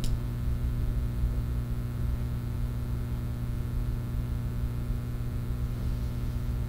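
Steady electrical hum with hiss on the room recording, with a brief click at the very start.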